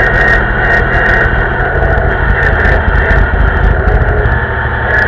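Vintage tractor's engine running steadily under way on the road, heard loud from the driver's seat, with sharp ticks about twice a second over the engine note.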